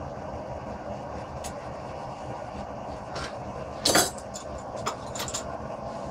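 Steel tools clinking against a hot iron bar clamped in a bench vise while a twisting wrench is fitted to it: one loud clank about four seconds in, with a few lighter clicks before and after, over a steady rushing roar.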